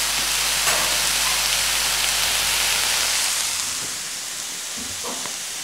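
Tenderloin steak pieces and melting butter sizzling on a hot flat griddle, a steady hiss that fades about four seconds in. A few faint soft knocks follow near the end.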